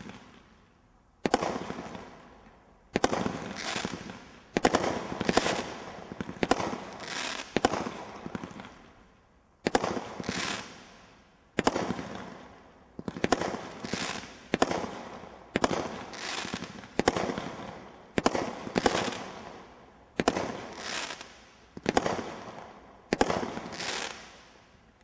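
Brothers Pyrotechnics 'Ninjas Time' 19-shot combination roman candle firing: a long run of sharp bangs, roughly one a second with a short pause partway through, each dying away over about a second.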